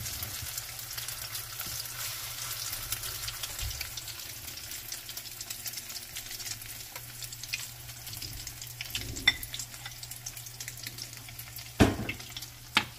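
Egg omelet with wild greens sizzling and crackling in a nonstick frying pan, with the scrape of a silicone spatula stirring it. Two sharp knocks sound near the end.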